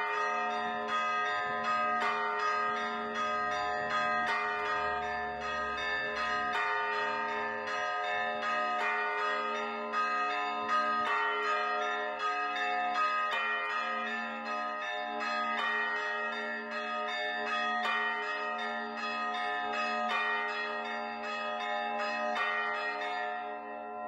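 Electrically rung church bells pealing, four of the tower's five bells sounding together, their strokes overlapping and each tone ringing on between strikes.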